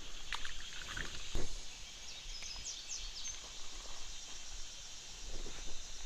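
Outdoor creekside ambience: a steady high insect drone, with a few short high chirps between about two and three seconds in. A couple of sharp knocks come early, the louder one about a second and a half in.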